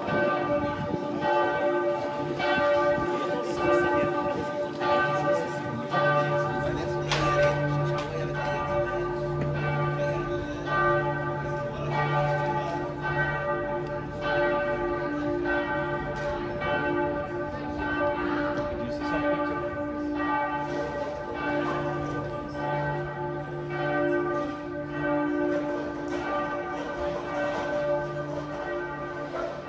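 Church bells pealing, several bells struck again and again with their tones ringing on and overlapping. A deeper hum joins about six seconds in.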